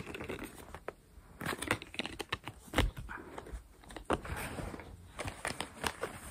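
Hands handling cosmetics packaging: scattered sharp clicks and taps of card boxes, with rustling as a small white drawstring pouch is opened and a white sheet inside is unfolded.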